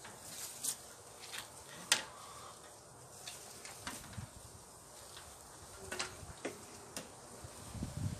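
Irregular sharp clicks and taps from hands and tools working on the lamp-post fixture, one louder knock about two seconds in.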